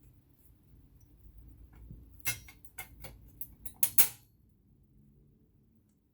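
A quick run of sharp metallic clicks and taps, about eight in two seconds, the last ones loudest: small metal parts and a small screw being handled and fitted on an all-metal vintage Electra sewing machine.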